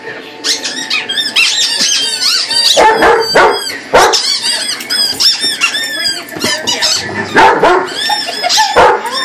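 Squeaky rubber chicken toy squeaking over and over in quick, high-pitched bursts as a dog chews it, with a dog barking a few times.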